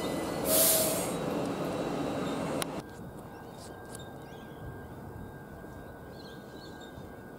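Queensland Rail electric suburban train running past with a steady motor whine and rail noise, and a brief loud hiss about half a second in. After about two and a half seconds the train sound stops abruptly, leaving quiet outdoor ambience with faint bird chirps.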